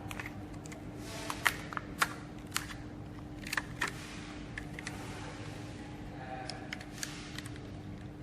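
Scattered sharp clicks and knocks of hard plastic, irregular and a second or so apart, from PET plastic boxes being handled at an ultrasonic welding machine, over a steady machine hum.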